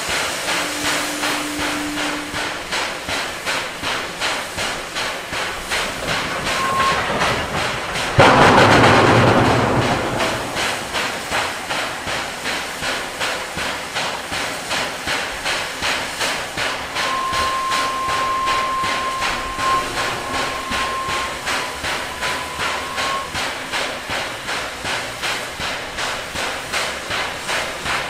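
SY-class 2-8-2 steam locomotive hauling a coal train, its exhaust beating steadily about twice a second. About eight seconds in, a loud rush of steam bursts out and dies away over a couple of seconds.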